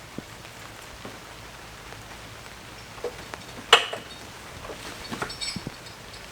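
Steady heavy rain hissing, with a few scattered knocks and clinks, the loudest a sharp clink about halfway through.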